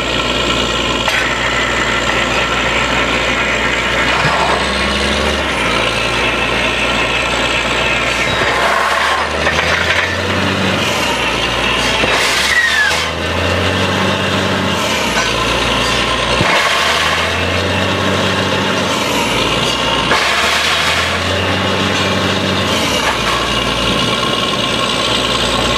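Truck-mounted borewell drilling rig running steadily under load while drilling, with compressed air blowing dust and cuttings up out of the hole. Its deepest engine note fades out for a second or two four times in the second half.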